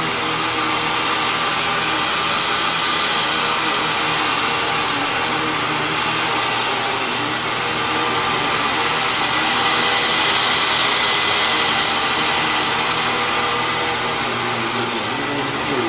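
Hoover WindTunnel Lite upright vacuum cleaner running steadily: motor whine over a rush of air, its lower tones wavering slightly in pitch.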